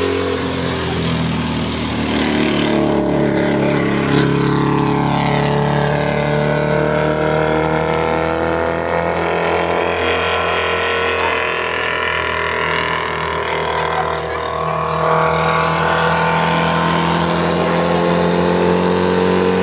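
Dwarf race car's motorcycle engine running hard around a short oval track. Its note falls a few seconds in as the car moves away from the fence and rises again in the second half as it comes back around.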